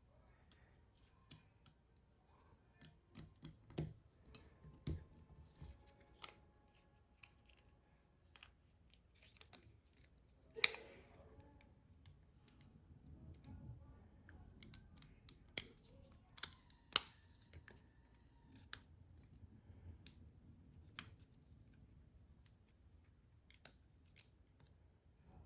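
Scattered light clicks and taps of Spyderco Stretch 2 folding-knife parts being handled and fitted together during reassembly, with two sharper clicks, one about a third of the way in and one about two thirds in.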